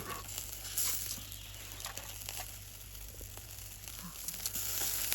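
Food sizzling as it cooks: a steady hiss with scattered small pops.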